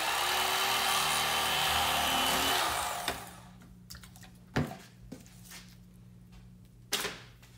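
Electric fillet knife buzzing as it slices through a perch, its motor pitch dropping as it winds down about three seconds in. Two sharp knocks follow, a couple of seconds apart.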